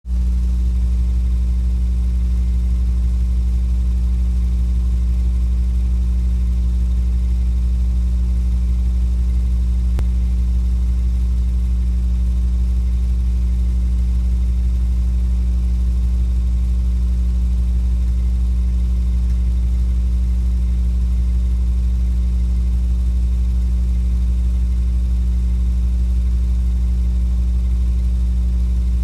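Steady low hum that never changes, with no other sound. This is the transfer noise of a silent Super 8 home movie.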